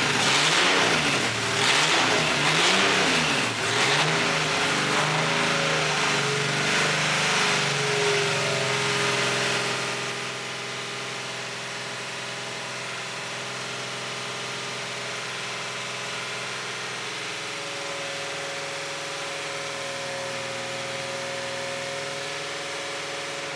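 BMW E46's newly swapped-in engine running, revved up and down several times. After about ten seconds it drops back to a steady idle.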